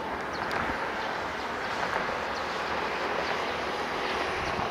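Steady outdoor noise over open country, with faint short high chirps now and then.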